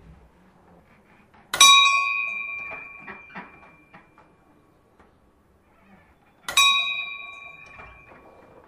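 A metal bell struck twice, about five seconds apart. Each stroke rings out with several clear tones and fades away over two to three seconds.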